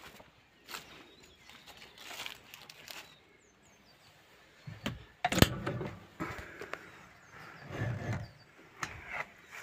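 Footsteps and the knocks and rattles of someone climbing into the cab of a Zetor 6045 tractor, with one sharp bang about five seconds in, the loudest sound; the engine is not running yet. Faint bird chirps behind.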